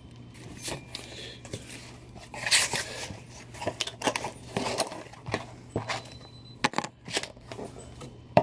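A small cardboard art box being folded and assembled by hand: rustling and creasing of card with scattered sharp clicks and snaps as flaps and tabs are pushed into place.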